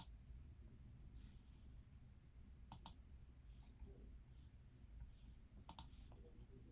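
Near silence with three pairs of sharp clicks, about three seconds apart.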